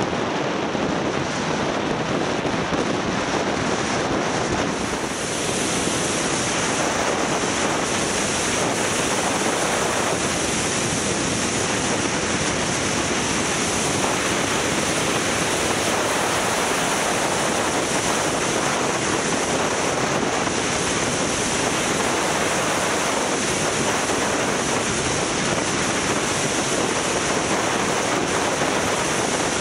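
Steady wind rush on the microphone of a camera riding on a moving motorcycle, with a brief easing about five seconds in.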